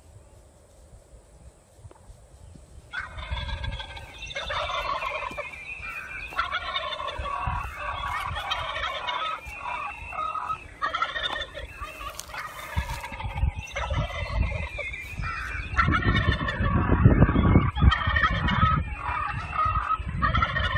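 Wild turkeys gobbling again and again, the rattling calls crowding one on another, beginning about three seconds in. A low rumble on the microphone comes and goes beneath them, heaviest near the end.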